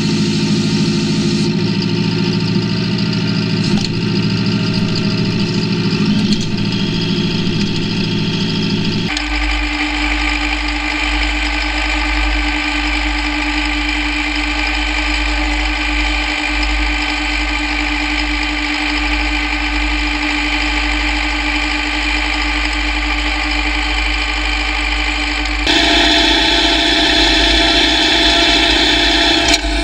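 John Deere tractor engine running steadily, its tone changing abruptly twice where different recordings are joined.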